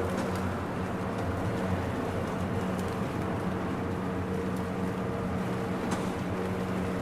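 Steady suburban rain with a continuous low hum underneath and a few faint ticks, once just after the start and again about six seconds in.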